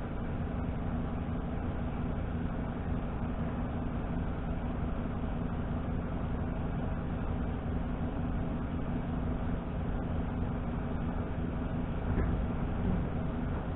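Steady low engine drone that runs without a break, with a small knock near the end.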